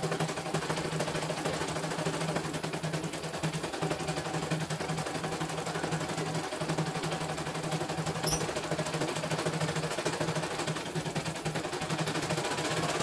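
CNY E900 portable embroidery machine stitching a design: a fast, even needle rattle over a steady motor hum, with a small click about eight seconds in.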